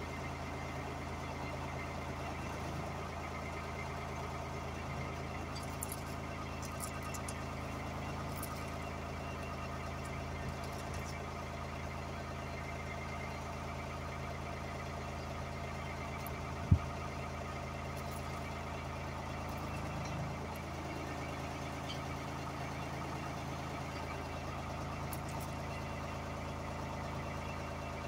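Truck-mounted US Jetting 4018 sewer jetter (4000 psi, 18 gpm) running steadily, its engine and high-pressure pump giving an even drone. A single sharp click a bit past halfway.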